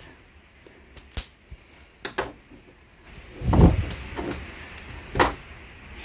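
A self-adjusting wire stripper clamps and pulls the sheath off a red fire-retardant cable. Light clicks come first, then a louder scraping pull about three and a half seconds in and a sharp snap of the tool about five seconds in.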